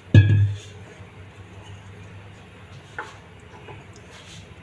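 A flat spatula stirring and scraping milk in a non-stick pan as it heats toward the boil. A short loud thump comes just after the start, and a single sharp click about three seconds in.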